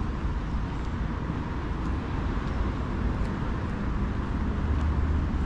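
Steady outdoor background rumble of a residential street, heaviest in the low end, with a few faint ticks.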